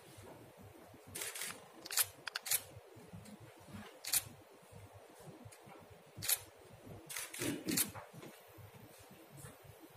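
Camera shutters clicking at irregular moments, one at a time and in quick runs, over a quiet room.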